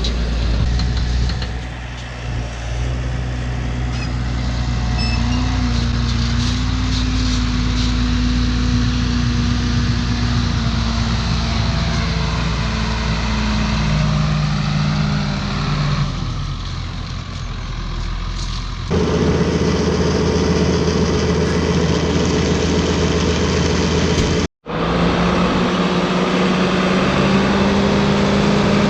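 An engine idling steadily. The sound changes abruptly about 19 s in and cuts out for a moment near 24 s.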